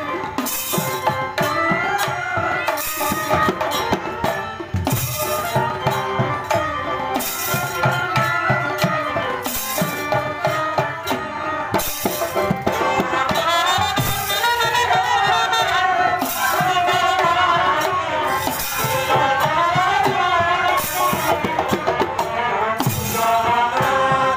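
Live folk-theatre band music: a wind instrument plays a wavering, gliding melody over hand drums and a regular jingling beat struck about once a second.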